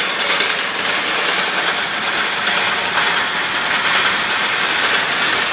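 Grain auger driven by a small gas engine, running steadily, with grain rattling up the tube and pouring from the spout.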